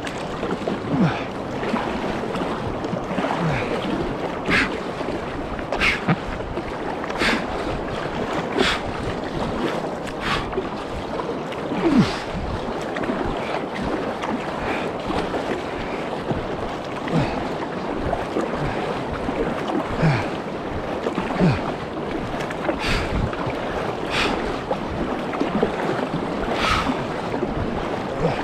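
Paddle strokes splashing at a steady pace, roughly one every second and a half, over the constant rush of river water, as a small boat is paddled hard upstream against the current.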